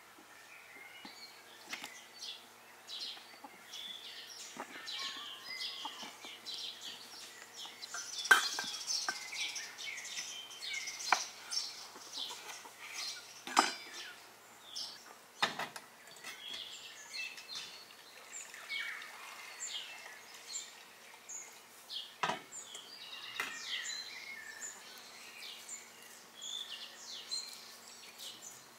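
Small birds chirping and singing in many short high calls, with a few sharp knocks and clinks from handling cookware and a wooden cutting board.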